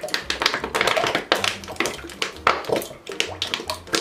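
Rapid, irregular light tapping and clicking, several taps a second, like utensils or containers being handled while cooking.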